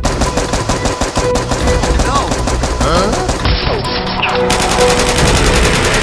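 Rapid, continuous bursts of gunfire sound effects, like machine-gun fire, laid over background music.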